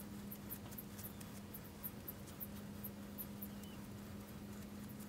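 Faint scratching and light ticks of a tomahawk head being handled and worked onto its wooden handle, over a steady low hum.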